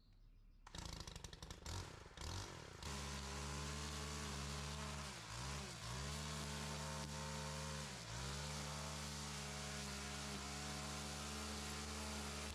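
Gas string trimmer engine running steadily. It comes in unevenly about a second in and settles into a steady drone at about three seconds, dipping briefly in pitch twice.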